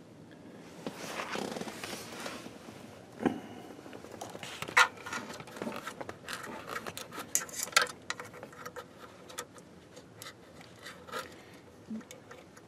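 Handling noise from plugging a speaker cable into a jack on the back of a CB radio: scraping and rustling broken by sharp clicks, the loudest about five seconds in.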